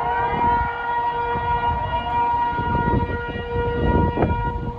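Civil defence warning siren wailing: its tone glides up, then holds steady, with a fainter second rising tone about two seconds in, over a steady low rumble. Sounding as a tsunami warning after the Kamchatka earthquake.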